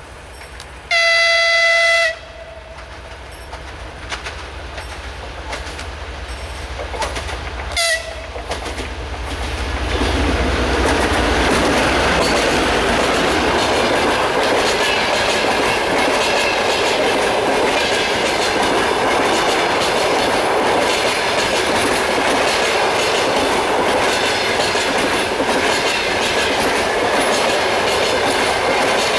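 TEP70BS diesel locomotive sounds its horn in one blast of about a second, then a short second toot, as its low engine rumble grows on approach. From about ten seconds in, the passenger coaches roll past with a steady loud rushing noise and clickety-clack of wheels over rail joints.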